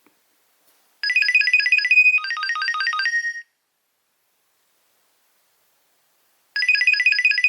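Nokia 2300 mobile phone playing a ringtone through its small speaker: a fast run of high beeping notes lasting about two and a half seconds, then a pause of about three seconds, and the same phrase starting again near the end.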